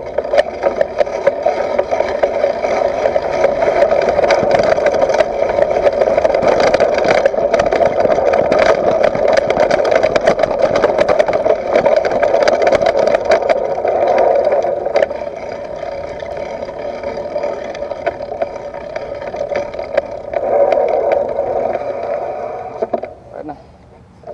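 Mountain bike ridden fast over dirt and grass, heard from a camera mounted on the bike: a dense rolling noise of tyres and wind on the microphone, with frequent clicks and rattles from the bike and its air suspension fork over bumps. It eases for a stretch after about fifteen seconds, swells again and drops away about a second before the end as the bike stops.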